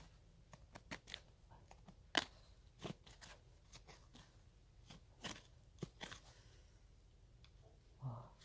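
Small hand digging pick chopping and scraping into dry, stony soil and roots while digging out a wild bellflower root. It makes irregular crunching strikes, the sharpest about two seconds in.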